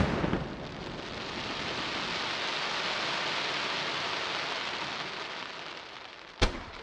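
Aerial firework shell's stars crackling: a dense, rain-like crackle that swells and then fades over about six seconds. About six seconds in, a single sharp bang as the next shell is fired from the ground.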